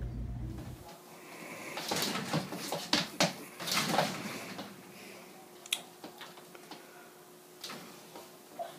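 A young goat's hooves clattering on a wooden floor and knocking against a mirrored sliding closet door as it rears and butts at its reflection. There is a flurry of knocks and taps about two to four seconds in, then a few single taps.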